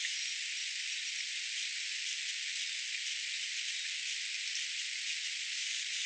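A steady, even hiss with no deep sound in it, unchanging throughout.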